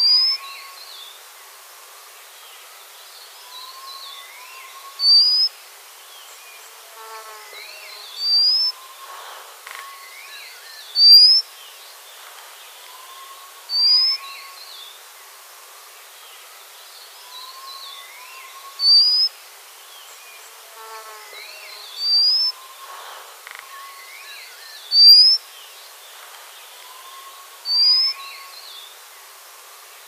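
White-capped redstart (white-capped water redstart) calling: a thin, high whistle that rises, given about every three seconds, ten times in all. Fainter chirps and calls sound behind it over a steady outdoor hiss.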